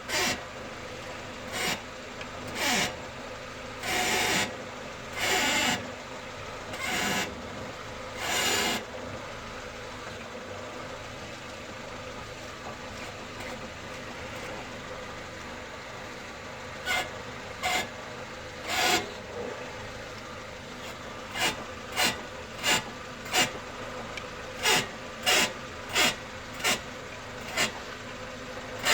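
A car's steering gives a rasping, rubbing creak each time the steering wheel is turned, heard as a series of separate bursts, several longer ones at first and then quicker, shorter ones near the end. It is a steering fault that no mechanic had managed to fix.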